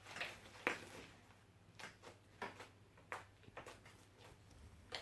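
Homemade fluffy slime made with shaving foam, being kneaded and squeezed by hand, giving faint, irregular clicks and pops.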